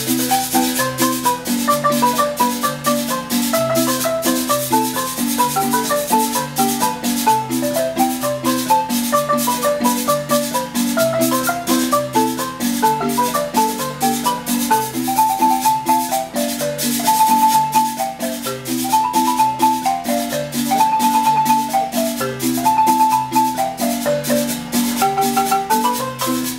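Wooden marimba with hanging resonator tubes played by two players with mallets: a lively tune of quick melody notes over a steady repeating bass pattern. A hand-held metal percussion cylinder keeps a fast, even rhythm alongside.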